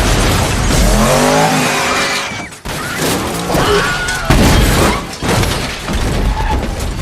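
Action-film sound effects: a dense run of crashing and shattering with a car skidding. About a second in, a rising-and-falling scream cuts through, and a second, higher cry comes around the middle.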